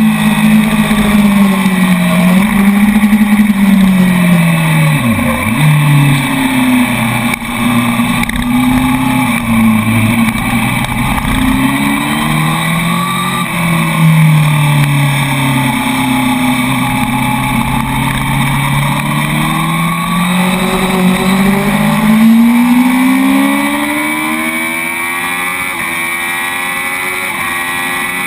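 Honda four-cylinder sportbike engine on the overrun, its pitch dropping steeply about five seconds in as it slows for a corner. Then it pulls hard, rising in pitch through the gears, and in the last few seconds the engine note falls back under a steady wind rush at high speed.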